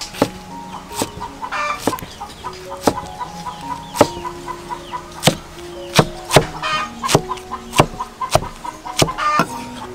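Steel cleaver chopping pineapple on a wooden chopping block: sharp knocks of the blade striking the wood, about one or two a second, over soft background music.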